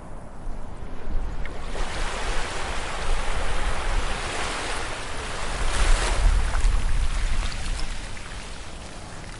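Ocean wave breaking on a sandy beach: a rushing wash of surf that builds about a second and a half in, peaks around the middle and fades away near the end.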